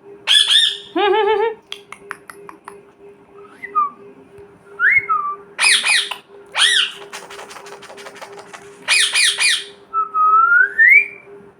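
Pet parrot squawking in loud, harsh calls in three clusters, with a run of rapid clicking between them, a few short whistled glides and one rising whistle near the end.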